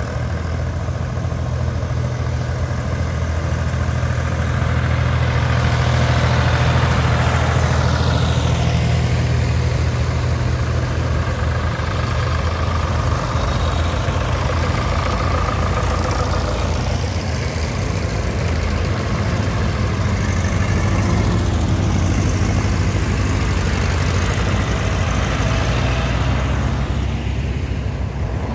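A procession of vintage tractors, a Fordson Major and a Massey Ferguson among them, driving past one after another with engines running steadily at road speed. Each one swells as it comes close and falls in pitch as it goes by.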